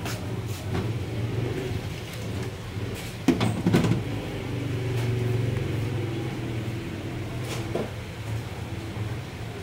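Plastic spatula stirring thick cake batter in a glass bowl, with a few sharp knocks against the bowl a little over three seconds in and another faint one near the end, over a steady low hum.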